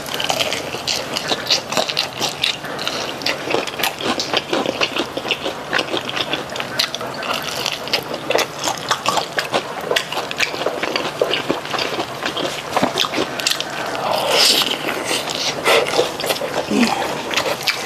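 Close-miked biting and chewing of a sauce-coated fried chicken drumstick: wet, sticky mouth sounds with many small crackles and clicks.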